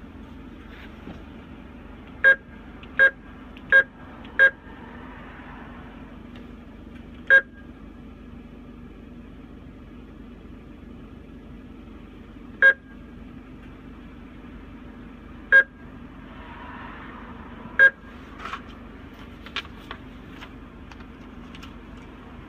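Drive-up ATM keypad beeping as keys are pressed: four quick beeps about two seconds in, then four single beeps spaced several seconds apart. Under them runs the steady low hum of an idling car.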